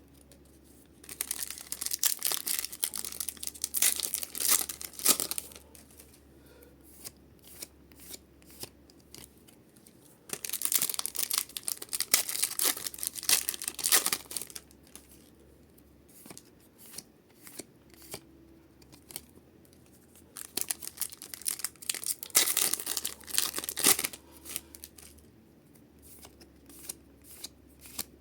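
Foil Pokémon booster packs being torn open and crinkled, three times, each tear lasting a few seconds. Short light clicks and rustles between them come from the packs and cards being handled.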